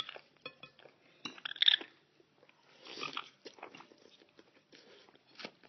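A pet bird eating spaghetti: quick small clicks and crunches of its beak working the food. There is a louder short burst about one and a half seconds in and another, noisier one around three seconds.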